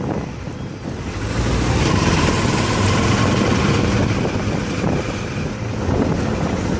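Motorcycle riding along the street, its engine running under wind rushing over the microphone. The sound drops briefly in the first second, then picks up and holds steady.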